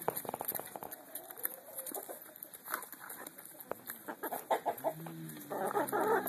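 A flock of brown laying hens pecking at cabbage and vegetable scraps in a wooden trough, making many quick pecking taps. About five seconds in, a hen starts clucking with low, drawn-out calls that get louder.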